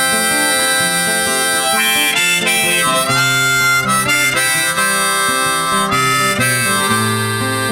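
Background music: a wordless instrumental passage of a song, with held melody notes over steady chords.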